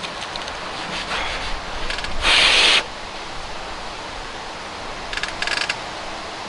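Hands working the action of a Kral Puncher NP-02 .177 air rifle between shots: a short scraping rub about two seconds in, then a brief run of small clicks about five seconds in.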